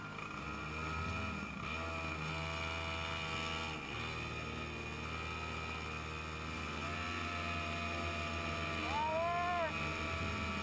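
Go-kart engines running on the track, heard from onboard. The engine pitch swells and drops with the throttle, with a sharp rise and fall in pitch near the end.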